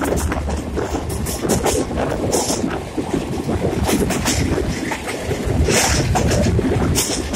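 Running noise of a moving passenger train heard from a coach window: wheels rattling and clicking over the track, with wind buffeting the microphone.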